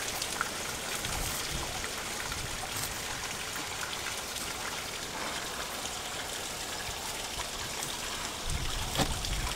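Soft crackly rustling of feathers and skin as a teal's breast is torn open by hand, over a steady hiss; a low rumble comes in near the end.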